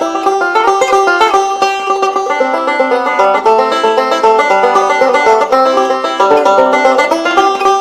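Background music: a fast, plucked-string bluegrass tune led by banjo picking.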